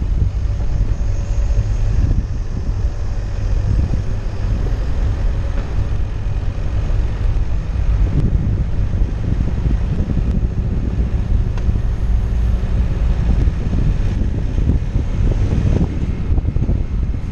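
A vehicle driving along a gravel dirt track: a steady low rumble, with wind buffeting the microphone of a camera mounted outside the vehicle.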